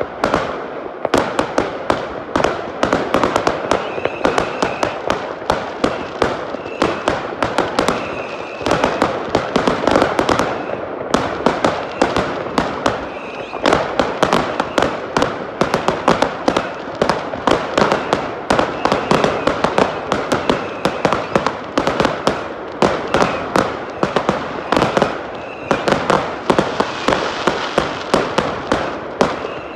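Fireworks display going off in a dense barrage: sharp bangs of bursting shells, several a second, with crackling between them and no pause.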